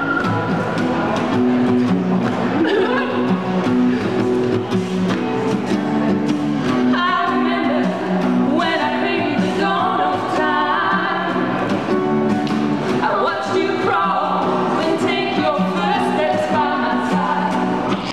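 Live acoustic band: two women singing together to an acoustic guitar.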